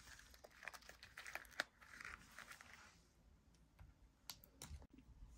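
Near silence with faint taps and light rustling as miniature toy handbags are handled and set down on a tabletop; a few isolated clicks near the end.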